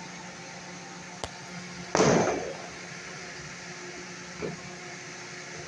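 Steady low room hum with a single sharp click about a second in and a brief, loud noisy burst about two seconds in that quickly fades, followed by a smaller one near the end.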